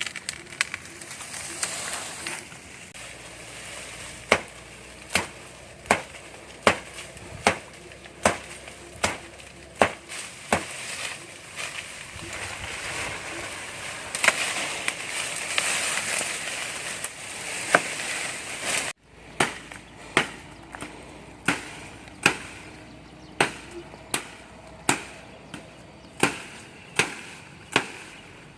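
Wood being chopped with a blade: a steady run of sharp strikes, a little more than one a second, broken about halfway through by a few seconds of louder hiss.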